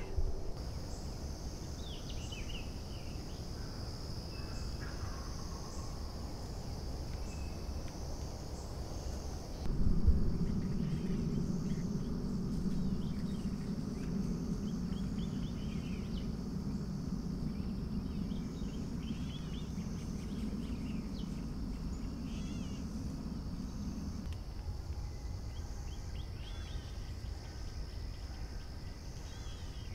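Dawn field ambience: insects trilling steadily, with many short chirps from small songbirds. A low hum starts suddenly about ten seconds in and stops about fourteen seconds later.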